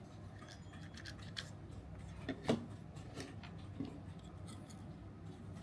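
Faint clicks and rubbing of the plastic slide assembly and barrel of a toy pistol being handled, with one sharper click about two and a half seconds in.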